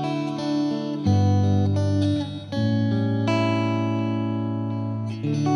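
Background music led by guitar, sustained chords changing every second or two.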